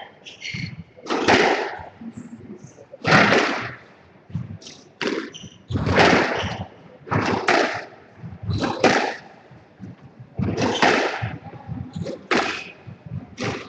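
Squash rally: the ball struck by rackets and smacking off the court walls, each sharp hit ringing in the enclosed court, one about every one to two seconds.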